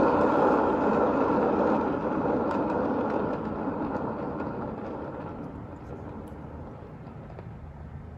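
Paint-pouring spinner whirring as a freshly poured acrylic painting is spun, the sound fading gradually over several seconds.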